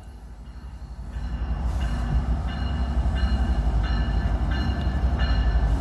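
Metra F59PHI diesel locomotive and its train drawing near. A low rumble builds over the first two seconds and then holds steady, with a faint high tone repeating about once every 0.7 s.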